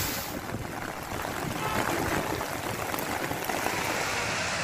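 Water running and splashing on a flooded, rain-soaked street, a steady rushing noise.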